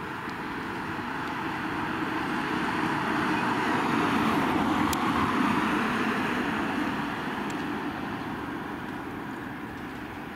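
A vehicle passing by: a steady rushing noise that grows louder to a peak about halfway through and then fades away.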